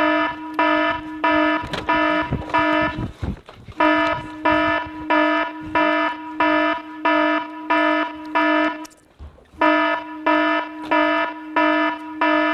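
Electronic alarm beeping, a steady pitched tone with bright overtones repeating at about two beeps a second. It breaks off twice for under a second, about three seconds in and again near nine seconds, then resumes.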